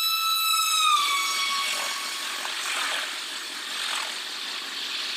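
Horn of an Indian Railways WAP-7 electric locomotive, one long blast that drops in pitch about a second in as the engine passes at high speed, followed by the steady rush and rattle of express coaches running through the station.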